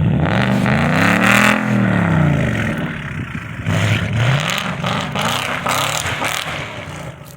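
Car engine revving hard, its pitch climbing and falling back over about two seconds, then rising and falling again more briefly, over a loud rushing noise.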